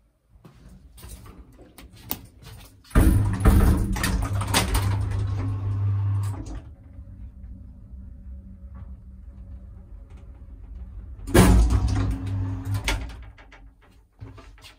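Old one-speed traction elevator in operation: its sliding car doors close with a loud stretch of low humming machinery noise, then the car runs with a quieter steady hum and a faint held tone. About eleven seconds in there is a second loud burst of machinery noise.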